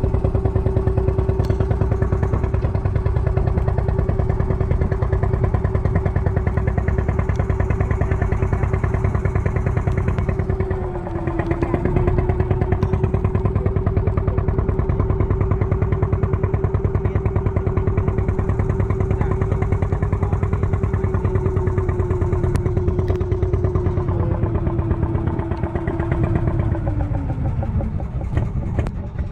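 Small boat's engine running at a steady speed, its pitch dipping briefly about eleven seconds in and dropping near the end as it is throttled back.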